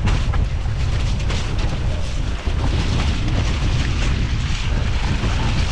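Heavy rumbling wind buffeting on an action-camera microphone as a hardtail mountain bike rolls down a dirt forest trail, with many small knocks and rattles from the bike over the ground.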